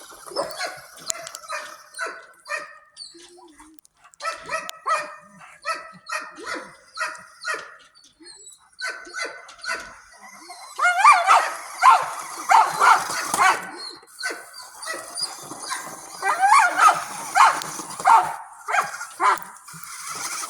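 A dog yipping and whining in a long run of short pitched calls, about two or three a second, louder and wavering in pitch in two stretches in the second half.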